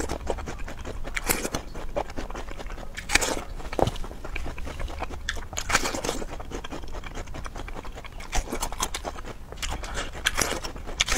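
Close-miked mouth sounds of a person eating: wet bites, sucking and chewing at irregular intervals, with a handful of louder bites or slurps spread through.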